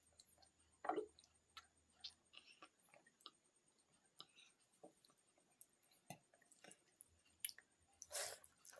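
A person eating pakhala (watered rice) and side dishes: soft chewing and wet mouth sounds with scattered small clicks. There is a louder noisy burst about a second in and another near the end.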